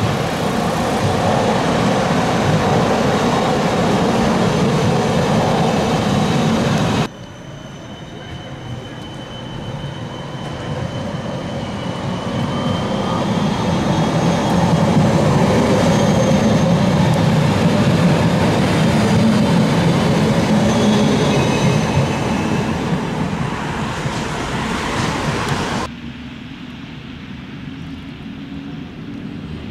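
Siemens Combino low-floor trams running along their tracks: a low rumble of wheels on rail with a thin high-pitched whine over it while the second tram passes, which is the loudest part. The sound changes abruptly twice, ending with a tram farther off and quieter.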